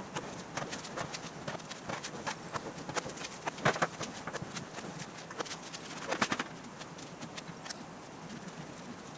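Aluminum sheet panel being worked back and forth through an English wheel: a stream of irregular light clicks and taps as the thin sheet flexes and rattles between the wheels, with a couple of louder clanks about four and six seconds in.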